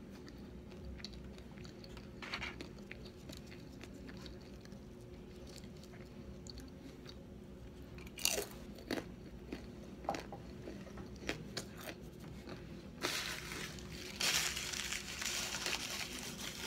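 A person chewing crisp food close to the microphone, with small mouth clicks, a sharp bite about halfway through and a louder, denser stretch of crunching near the end.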